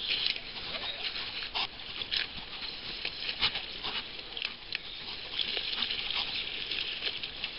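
Rushing river water with irregular short splashes and knocks scattered through it.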